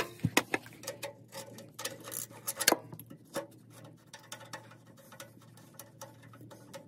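Irregular small metal clicks and clinks of hand tools working, densest and loudest in the first three seconds, then sparser.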